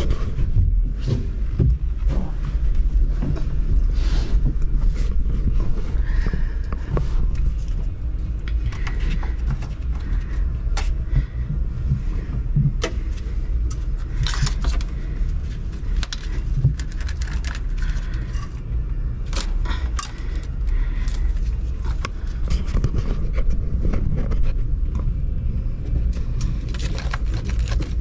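Irregular clicks, rattles and scrapes of a stainless steel rod being worked into a blocked bilge drain, over a steady low rumble.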